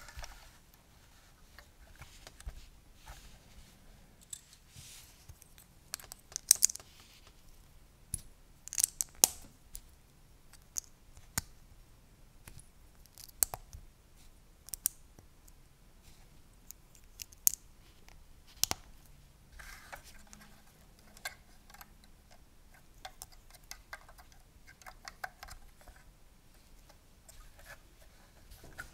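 LEGO plastic bricks and plates clicking and snapping as they are handled, pulled apart and pressed together: a scattered run of small sharp clicks with a few louder snaps.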